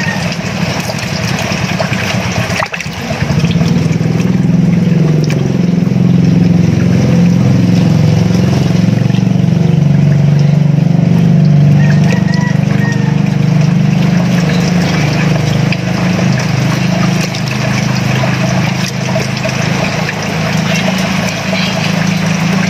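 A small engine running steadily with a low hum that comes in about three seconds in and holds.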